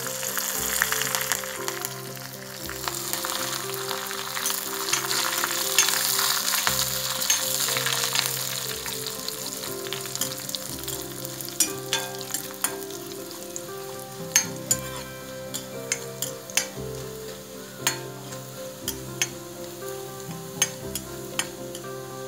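Onion, dried red chillies and fresh curry leaves sizzling in hot oil in a kadai. The hiss is loudest in the first several seconds after the curry leaves go in, then eases. From about halfway, a steel ladle stirs and knocks against the pan in sharp clicks.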